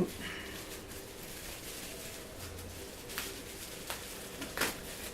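Handling noise from a boxed computer power supply and its packaging: a sharp click at the start, then a few light knocks in the last two seconds.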